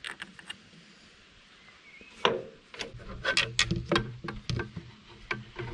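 A series of sharp knocks and clicks, with a short falling creak about two seconds in, then a quicker run of knocks.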